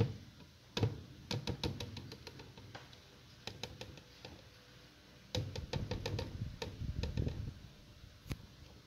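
Plastic measuring cup knocking and clicking against a plastic blender jar while thick cream is tipped out of it. The knocks are irregular and come in clusters, with a busier run of duller thuds in the second half.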